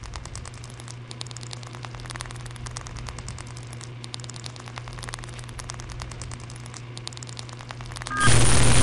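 Electronic static: dense, rapid crackling clicks over a steady low hum. About eight seconds in it jumps suddenly to a much louder hiss with a thin high whine.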